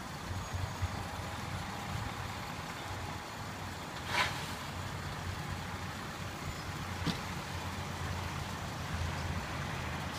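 Steady low rumble of idling vehicle engines, with a short hiss about four seconds in and a sharp click about three seconds later.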